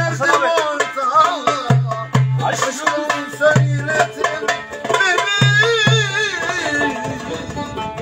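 Live band music: a hand drum beats out a rhythm of deep strokes under a wavering, ornamented melody line.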